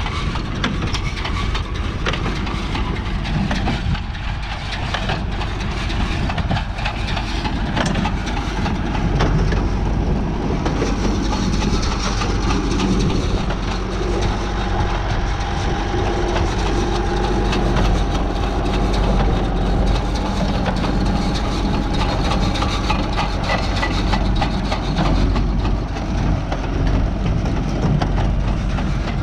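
A Renault tractor's engine running steadily while it drives a New Holland 68 small square baler, with the baler's mechanism clattering over and over as it packs hay.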